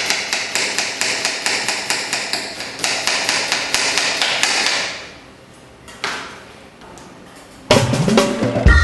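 Knife chopping red onion on a plastic cutting board: rapid, regular strokes, several a second, lasting about five seconds. A short whoosh follows, then upbeat music with a steady beat comes in near the end.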